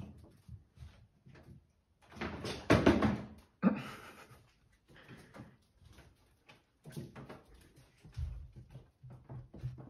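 Siamese cats jumping about on furniture and pet carriers while hunting a moth, making scattered knocks and bumps. The loudest is a bump about three seconds in, with another sharp knock just after.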